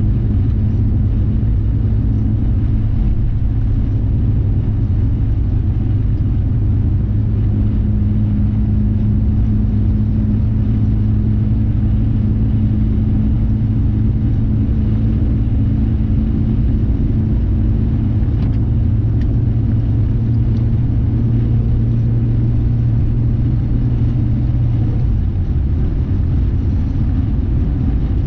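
Car driving at a steady highway speed, heard from inside the cabin: a constant low road and engine rumble with a steady hum, which eases slightly near the end.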